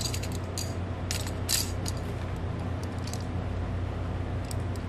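Plastic action-camera mount parts clicking and clattering as they are handled and fitted together, with a denser run of clicks about a second and a half in, over a steady low hum.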